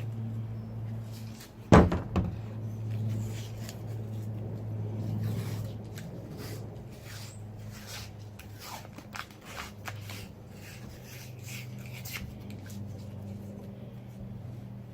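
Tape being pulled off the roll and torn in short crackling strips while an object is masked off for spray paint. A steady low hum runs underneath, and there is one sharp knock about two seconds in.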